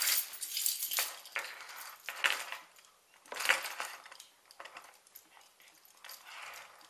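Small clinks, clicks and rustles of a lighter and its parts being handled to fill it with lighter fluid, in irregular bursts, the loudest about a second in, two seconds in and three and a half seconds in.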